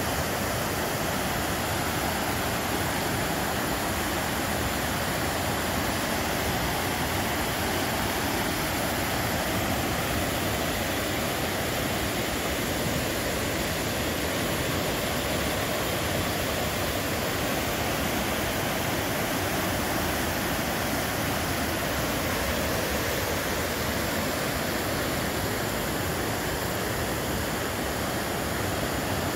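Whitewater river rapids rushing: a steady, dense wash of water noise that holds even throughout.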